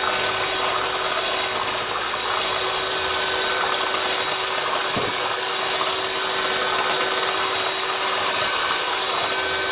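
Electric stick blender running steadily in a bowl of soap batter, with a constant high motor whine over a lower hum, blending the oils and lye solution toward trace.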